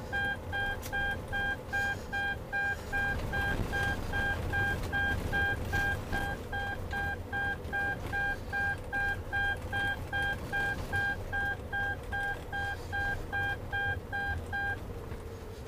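A car's electronic warning beeper sounds a steady, rapid run of short high-pitched beeps, about two a second, over low engine and road rumble. The beeping stops about a second before the end.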